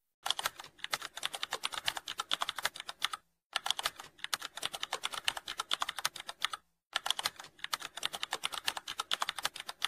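Computer keyboard typing sound effect: rapid keystrokes, broken by two short pauses, about a third and two thirds of the way through.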